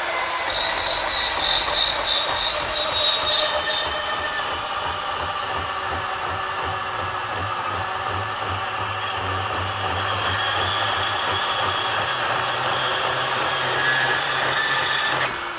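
Ridgid R8604 18V cordless compact band saw running at speed 5, its blade cutting through 2-inch steel angle iron about 3/16 inch thick. A high whine from the blade on the steel runs through the first six seconds or so and steps up in pitch about four seconds in. The saw runs on steadily until the cut is complete and then stops just before the end.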